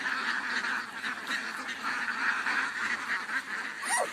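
Domestic ducks quacking and chattering continuously in a dense, overlapping jumble.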